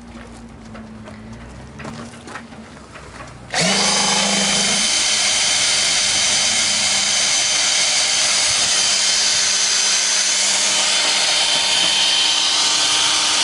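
Cordless drill driving a Mannesmann 446 drill-powered water pump. After a few faint handling clicks, the drill starts suddenly about three and a half seconds in. It then runs at a steady speed with a high whine while the pump draws water through the hose.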